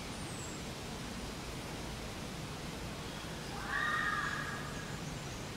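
Steady outdoor hiss, with a faint high falling chirp just after the start and one short pitched call, rising and then held for about a second, a little past the middle.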